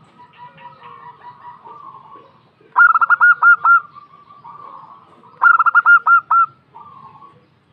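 Zebra dove (perkutut) cooing, a female's call: two short phrases of about five quick notes each, every note rising and falling, about two and a half seconds apart. Fainter chirps of other birds run underneath.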